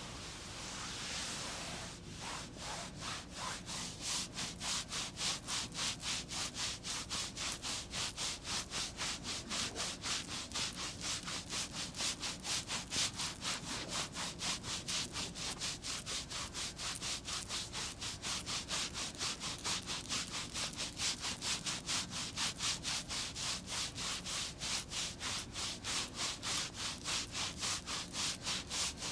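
Rapid, even rubbing strokes of a massage, about three a second, starting about two seconds in after a soft rustling hiss.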